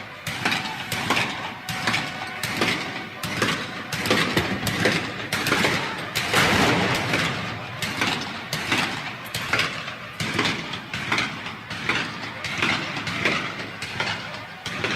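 Battlefield war sound effect: a dense, continuous din packed with rapid sharp cracks and bangs, several a second, swelling and easing without pause.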